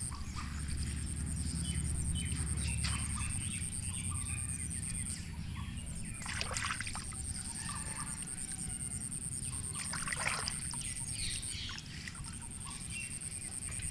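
Pond water sloshing and dripping as a cast net is hauled in by hand, with birds calling now and then.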